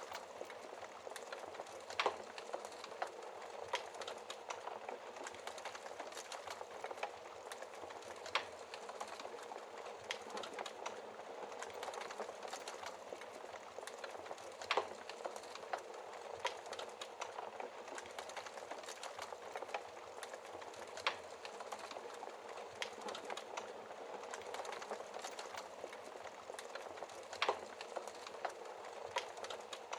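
Wood fire in a fireplace crackling steadily: a dense run of small snaps over a soft hiss, with a louder pop about every six seconds.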